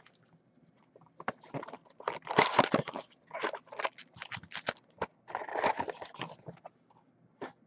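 Foil-wrapped Topps Finest trading card packs rustling and crinkling as they are pulled from their cardboard box and stacked, in several irregular bursts, with a sharp click near the end.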